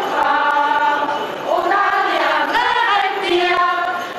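A choir singing, mostly women's voices, holding long notes that glide from one pitch to the next.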